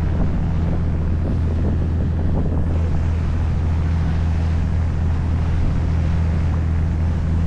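Sightseeing boat's engine running steadily with a deep, constant drone, mixed with wind and the rush of sea water along the hull.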